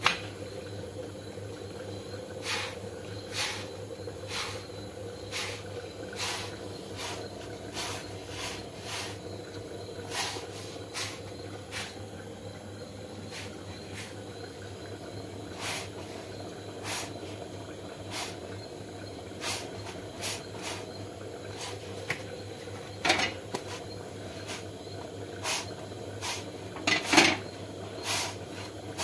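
Light irregular taps and clicks, about one a second, as a roti is turned and pressed with a cloth on an iron tawa over a gas burner, with a steady low hum underneath. A louder cluster of taps comes near the end.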